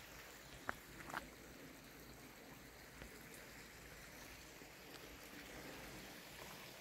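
Near silence: faint outdoor background hiss, with two brief faint clicks about a second in.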